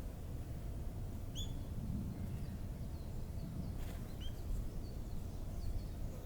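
A few short, high bird chirps, one about a second and a half in and another a little after four seconds, with fainter small chirps between, over a steady low rumble of background noise. A single brief click comes just before four seconds.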